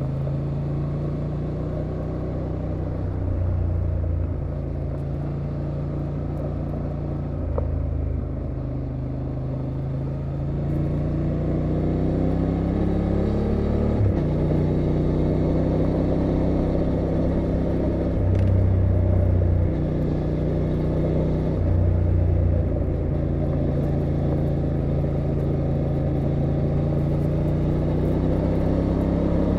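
2023 Honda Transalp XL750's 755 cc parallel-twin engine and exhaust running under way, its pitch climbing gradually as the bike gathers speed, with a brief sharp break about halfway through. Tyre and wind noise run underneath.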